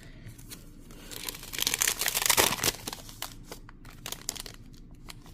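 A foil trading-card pack wrapper being torn open and crinkled in the hands: a dense crackling starts about a second in and lasts about a second and a half. It is followed by a few faint ticks and rustles as the cards are handled.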